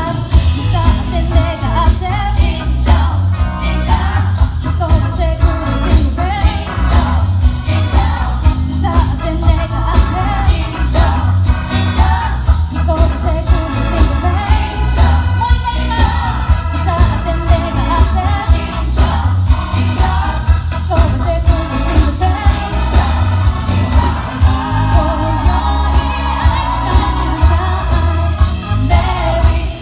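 Christmas pop song: singing over a steady beat with jingle bells.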